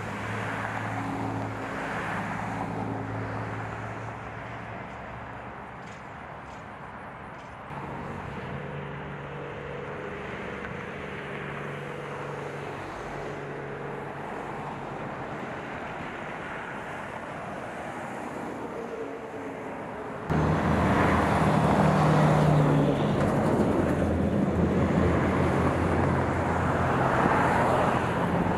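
Road traffic: cars and trucks running and passing, a steady engine hum with tyre noise. The sound changes suddenly twice, about a quarter of the way in and again about two-thirds in, where it gets much louder.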